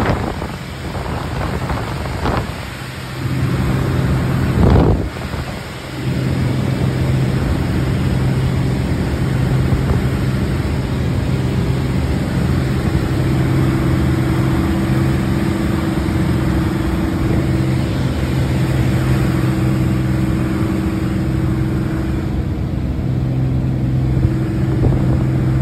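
Beechcraft J35 Bonanza's piston engine and propeller heard from inside the cabin, a loud steady drone during a low pass and climb-out. There are two brief rushes of noise, one at the start and one about five seconds in, and a higher tone joins the drone about halfway through.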